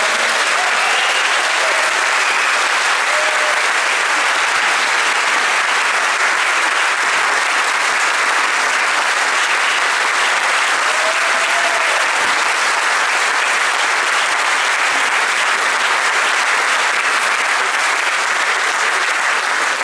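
Sustained applause from a large audience, dense and steady throughout.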